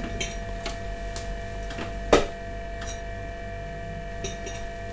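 A steady low hum with a few light clicks and one louder knock about two seconds in.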